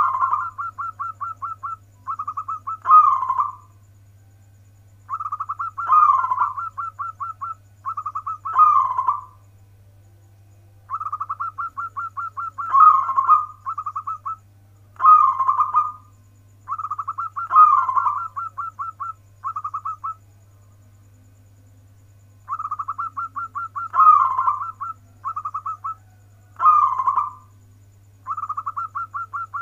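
A zebra dove (local perkutut) sings its cooing song over and over. Each phrase is a quick run of short staccato notes with one or two louder rolling coos, and the phrases come back every five or six seconds. A steady low hum runs underneath.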